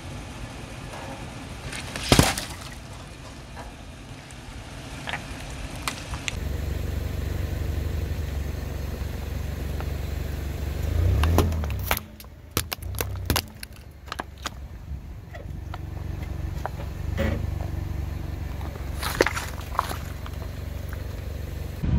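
A car's engine runs at low speed as its tyres roll over objects. There is a loud crack a couple of seconds in, a cluster of crunches and snaps in the middle, and more near the end.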